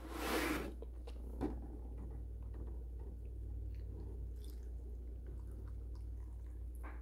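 Milk poured from a plastic gallon jug onto granola, strawberries and avocado in a bowl: a faint, soft pour. It opens with a short rustle of the jug being handled and a single click about a second and a half in.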